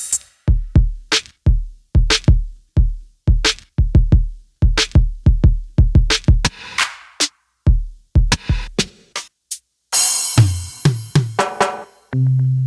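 Electronic drum pattern from a Maschine+ groovebox: deep kick drums whose pitch drops quickly, about two hits a second, with snare hits between them. About ten seconds in a cymbal crash sounds, and near the end a held bass note and keyboard chord come in.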